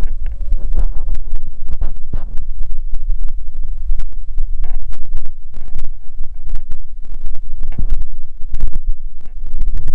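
Wind buffeting a handheld camera's microphone: a loud, steady low rumble broken by irregular crackles and pops from wind and handling.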